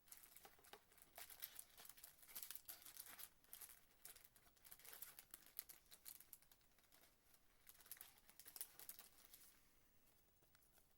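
Faint crinkling and rustling of a trading-card pack's foil wrapper being handled and torn open, with light clicks of cards, stopping about ten seconds in.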